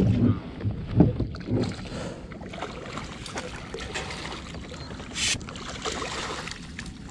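Hooked striped bass thrashing and splashing at the surface beside a kayak as it is brought to the landing net, with a sharp splash about five seconds in. Low thumps in the first two seconds from handling and gear knocking on the kayak.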